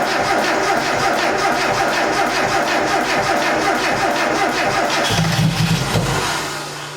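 Mazda Miata four-cylinder engine, just rebuilt, cranking on the starter with an even pulsing rhythm. It swells deeper and louder about five seconds in, then dies away without settling into a steady idle: fuel is not yet through to the engine on this first start attempt.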